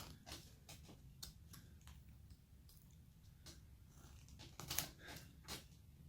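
Hand wood-carving blade cutting into a basswood block: faint, irregular small clicks as the edge slices off chips, with a short cluster of louder cuts a little past the middle.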